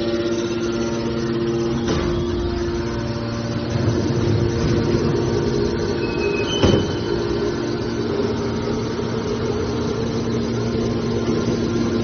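Hydraulic can baler's electric motor and pump running with a steady hum. A sharp knock comes about two seconds in, and a louder clank just past the middle follows a brief high squeak.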